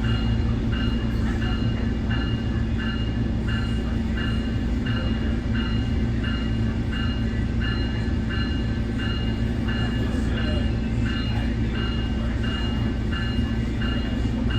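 Nippon Sharyo diesel multiple unit running with its warning bell ringing steadily, about two strokes a second, over the constant low drone of its diesel engine.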